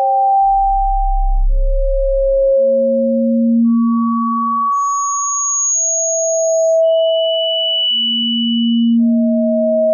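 A sequence of pure electronic sine tones for tinnitus relief. Each tone is held steady for about two seconds and overlaps the next. They jump between pitches, from a deep low hum to a thin, very high whistle.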